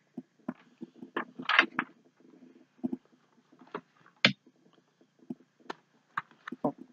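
Handling noise from unpacking a subscription box: irregular rustling, scraping and small knocks as a card is set aside and a folded fabric shirt is pulled out and shaken open. The loudest moments are a longer rustle about a second and a half in and a sharp knock about four seconds in.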